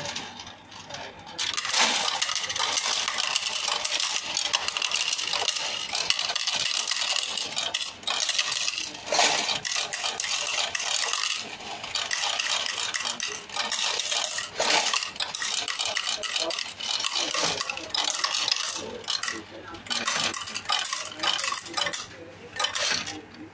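Paras electronic coin counting and sorting machine running through a batch of coins: a dense, continuous metallic clatter and clinking as the coins are fed through and drop into the sorting bins. It starts about a second and a half in, has a few brief lulls, and stops just before the end.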